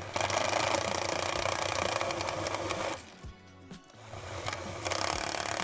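Power drill running in two bursts, about three seconds and then about one second, driving in assembly hardware, with background music underneath.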